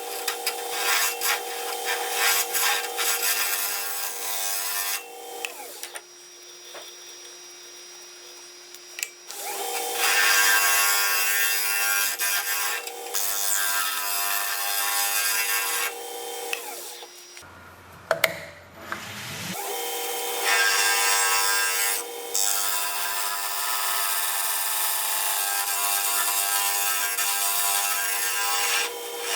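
Wood lathe running with a turning tool cutting into a spinning crotch-wood bowl: a steady hum under a continuous scraping, shaving noise. The cutting stops twice for a few seconds.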